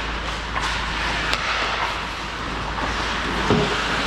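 Hockey game play noise: a steady hiss of skating and rink activity, with a couple of sharp clacks of sticks or puck in the first second and a half.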